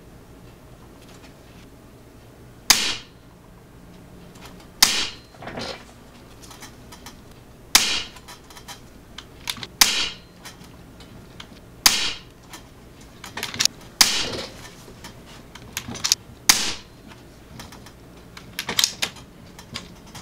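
Regulated .22 ATI Nova Liberty PCP air rifle firing a string of shots, one every two to three seconds, each a short sharp report, with softer clicks between some of the shots.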